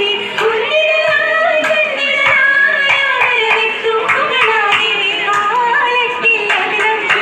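Oppana: a group of girls singing a Mappila song together, with hand clapping in time. The clapping is sparser in the middle and thicker near the end.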